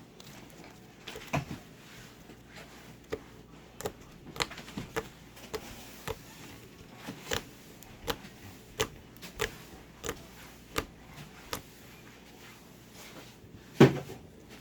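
Homemade slime being handled and squeezed, giving short sharp clicks and pops at irregular intervals, about one a second, with a louder knock near the end.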